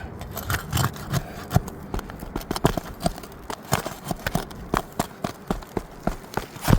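A thin flat pry bar working under a brittle old asphalt shingle to pull out a roofing nail: an irregular run of sharp clicks, taps and scrapes, several a second, with the loudest knock near the end.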